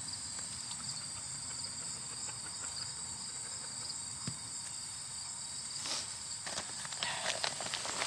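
A steady, high-pitched insect chorus drones in the background. From about six seconds in, rustling and scuffing comes in and grows busier as the emptied potato grow bag and its soil are handled.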